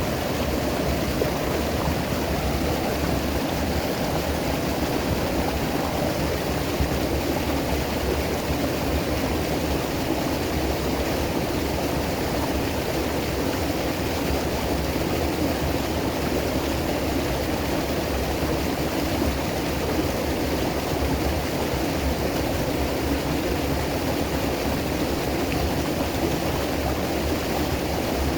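River water flowing over rocks: a steady, even rushing.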